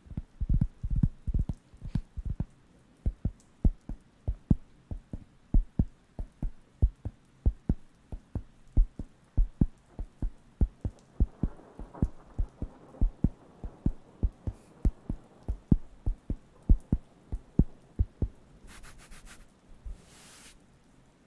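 Round wooden coaster patted against the microphone in a steady run of dull thumps, about two or three a second. Near the end, two brief scratchy rubs.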